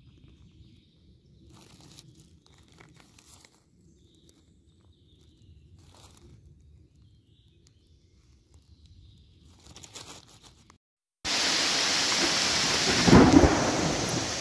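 Faint rustling and a few small clicks in a quiet forest, then an abrupt switch to heavy, steady rain with a low roll of thunder about two seconds after the rain begins.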